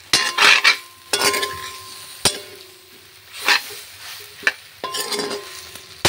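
Metal spoon stirring jujube pieces frying in oil in a black wok: scrapes against the pan about once a second over a steady sizzle, with one sharp clink a little after two seconds in.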